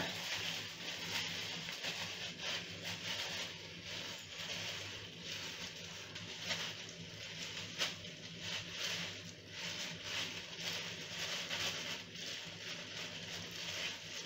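Soft, irregular rustling and scraping of plastic-gloved hands rubbing toner through wet hair, over a faint steady low hum.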